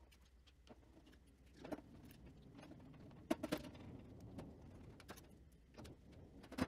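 Faint, scattered clicks and light metallic clinks of screws being handled and driven by hand to fasten a dust port onto a router table dust bucket. A few sharper clicks stand out about two and three and a half seconds in.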